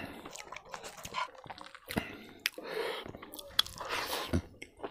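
Close-miked chewing of a soft mouthful of rice and kidney beans, wet and smacking, with irregular clicks. Fingers gather food from a wooden plate.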